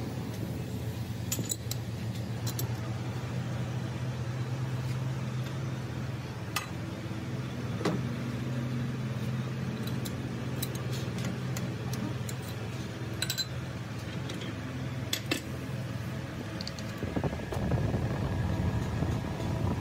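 A workshop machine running with a steady low hum while metal parts clink sharply now and then. Near the end a louder, rougher noise comes in over it.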